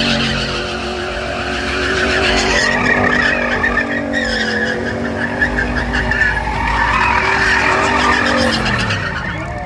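Car spinning its tyres on pavement: the engine is held at high revs while the tyres squeal, and the revs fall away near the end.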